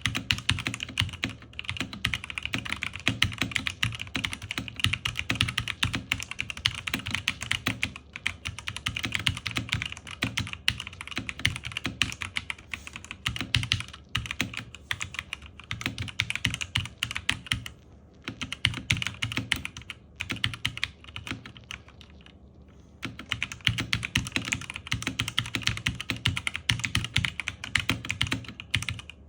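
Continuous fast typing on a Zifriend KA646 mechanical keyboard: a dense stream of key clicks and clacks, broken by short pauses about 18 seconds in and again around 22 seconds.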